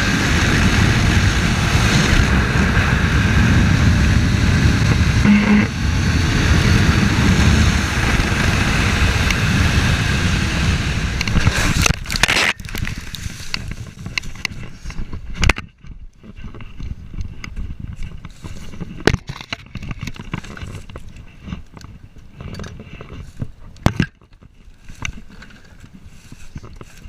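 Motorcycle riding noise on a helmet camera: a steady roar of wind and engine for about twelve seconds. It then gives way to a quieter stretch with scattered knocks and clicks.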